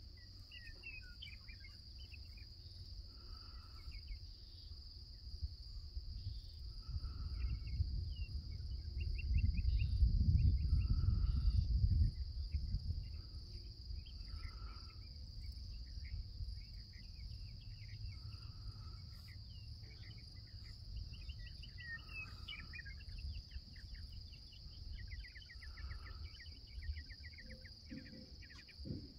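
Insect chorus: a steady high-pitched drone, with scattered chirping trills and a short call repeating about every four seconds. A low rumble swells about a third of the way in, is loudest for a few seconds, then fades back.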